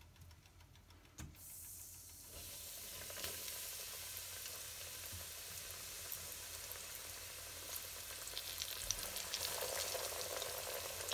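A breaded chicken piece deep-frying in hot oil in a stainless steel pot: the oil starts sizzling and bubbling about a second in and grows louder and fuller as it fries.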